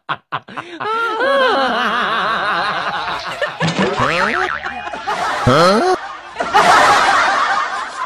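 Laughter in rising and falling peals, with a loud noisy rush near the end.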